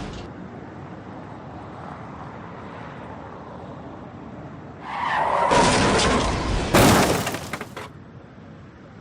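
Car crash sound effect: tyres screeching for about two seconds, then a sudden loud collision with breaking glass that crackles away within a second.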